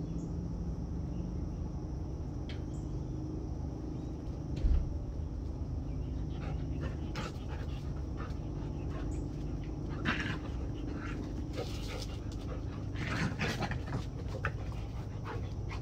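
A dog panting, with a dull thump about five seconds in.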